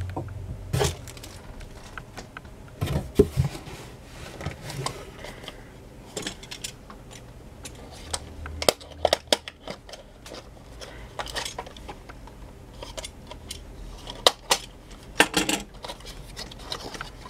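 Small cardboard product box being handled and slit open with a utility knife: irregular clicks, taps and short scrapes of the blade and cardboard, with items knocking lightly on the table.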